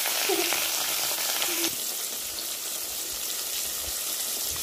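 Fish steaks shallow-frying in hot oil in a wok: a steady sizzle.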